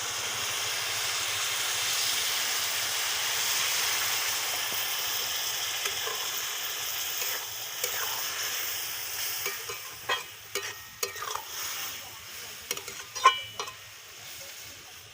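Boiled milk poured into a hot pan of fried carrots and sugar, sizzling with a hiss that slowly fades. From about ten seconds in, a spoon stirs and scrapes against the pan with sharp clinks.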